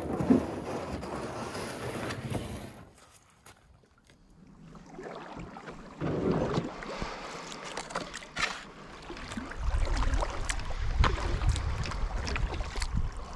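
Kayak being paddled on calm water: paddle strokes splashing, with a number of sharp clicks. Wind rumbles on the microphone in the last few seconds.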